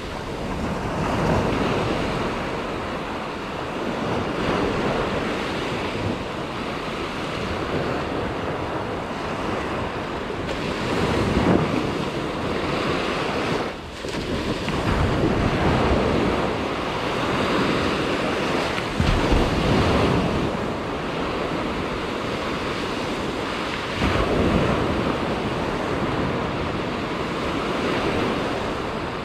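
Small waves breaking and washing up a sandy beach, the surf swelling and easing as each wave comes in, with wind rumbling on the microphone.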